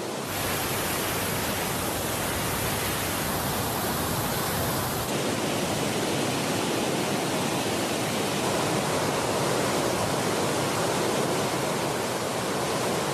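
Steady rush of a huge waterfall, a dense, even roar of falling water. The highest hiss thins slightly about five seconds in.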